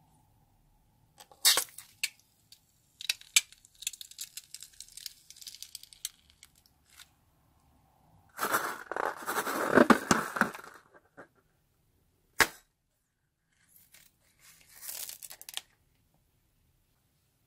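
Scissors snipping into a slime-filled rubber balloon, with crackly rubber tearing. Then a loud wet squelching for two to three seconds as the slime is squeezed out of the balloon. A sharp click follows, and near the end a short patter as small beads are scattered onto the slime.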